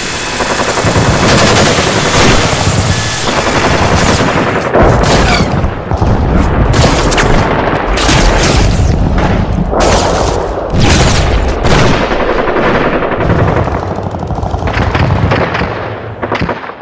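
Harsh, distorted noise from an industrial black/death metal noisegrind recording, packed with rapid gunfire-like bursts and booms. It thins out and fades away near the end.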